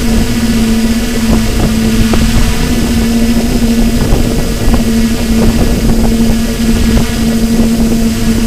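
Quadcopter's electric motors and propellers whirring steadily at one held pitch while hovering, with wind buffeting the onboard microphone.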